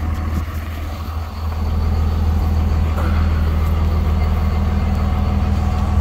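A heavy truck engine idling steadily, a low even hum that gets louder about a second and a half in and then holds.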